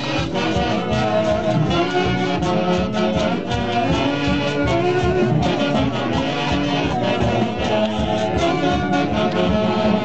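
Live band music: saxophones and other wind instruments playing a melody over a steady beat.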